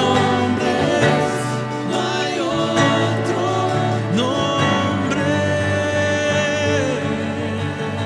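Live worship music: several voices singing with acoustic guitar and keyboard, with one long held sung note in the second half.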